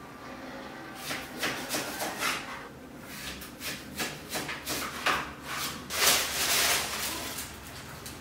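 Hands preparing food at a kitchen counter for oatmeal: irregular scraping and rustling strokes, loudest about six seconds in.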